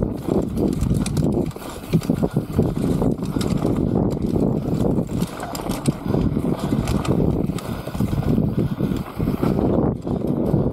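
Mountain bike descending a dirt trail: the tyres roll over the dirt while the chain and frame rattle over bumps in a run of irregular clicks and knocks.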